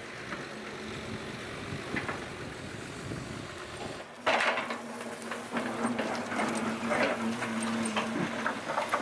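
An engine running steadily, with a sudden burst of metal clanks and knocks starting about four seconds in and repeating irregularly after.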